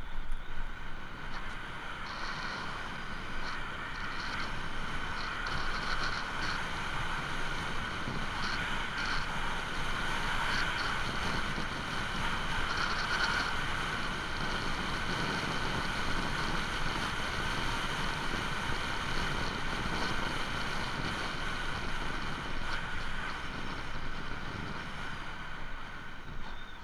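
Riding noise of an electric trike under way: wind on the microphone and tyres rolling on asphalt, with a steady high whine over it.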